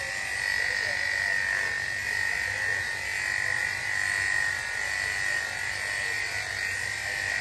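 Corded electric dog grooming clippers running with a steady high-pitched whine as they are worked over a dog's head and ears.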